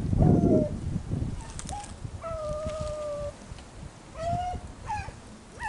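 A pack of rabbit hounds baying while running a rabbit's trail: several drawn-out bays, the longest about a second, over wind rumbling on the microphone.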